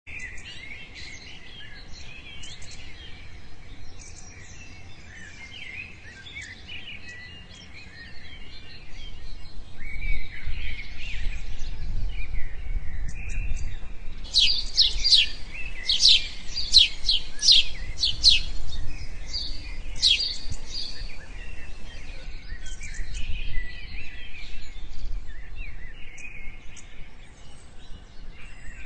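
Several small birds chirping and twittering together over a low rumble, with a run of loud, sharp chirps repeated about twice a second in the middle.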